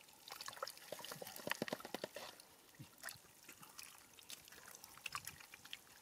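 Muddy water dripping and splashing as a perforated plastic basket and gloved hands work in shallow mud, a quick run of small drips and splashes for the first couple of seconds, then fewer.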